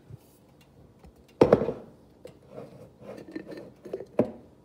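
Kitchen handling noises while salsa is spooned onto tacos: a loud knock about a second and a half in, then light clattering and rustling, and a sharp click near the end.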